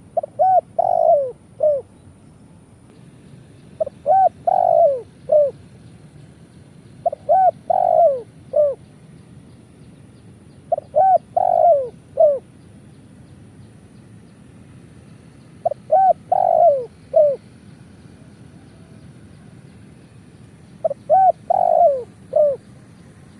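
Spotted dove cooing: six phrases of about four to five low, falling notes each, repeated every three to five seconds.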